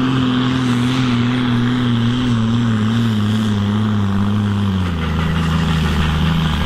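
Fiatagri tractor's diesel engine running hard under a pulling load, its pitch sagging slowly and then dropping further about five seconds in as the load pulls the revs down.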